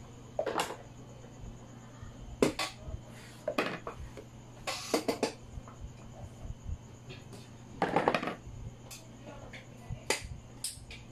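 Small Sintra-board (PVC foam) model pieces being set down and shifted on a diorama base: light plastic clacks and taps in about six separate clusters, the loudest around 2.5 s and 8 s in, over a faint steady hum.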